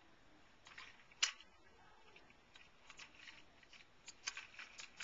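Small plastic toy truck pushed along concrete, its wheels scraping and clicking faintly on the rough surface, with one sharper click about a second in and a run of small clicks near the end.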